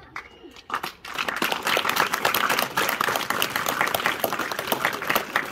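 Audience applauding: many quick overlapping claps start about a second in and die away near the end.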